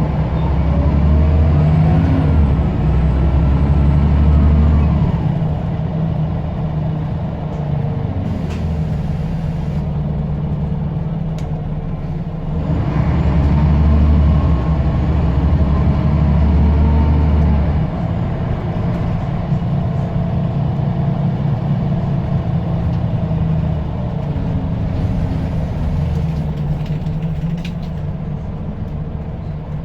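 Scania L94UB single-deck bus's diesel engine pulling hard twice, at the start and again about halfway, with a turbo whistle rising and falling over each pull. The engine eases off between the pulls, and there are brief hisses of air in between.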